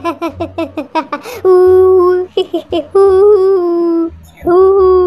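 Laughter in quick repeated bursts for about the first second, then a voice holding three long, steady sung notes.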